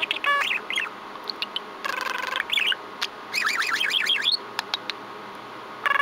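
Budgerigar chattering: three bursts of rapid, warbling chirps, the middle one harsher and buzzier, with a few short clicks between.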